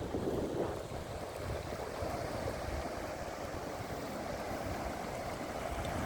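Sea waves washing on the shore, a steady rush of noise with a low rumble underneath.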